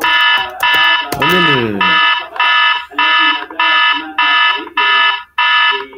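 Electronic alarm beeping in a steady, loud pulse, about three harsh buzzing beeps every two seconds. It is the alarm sound effect of a hacker-simulator 'EVACUATE' warning.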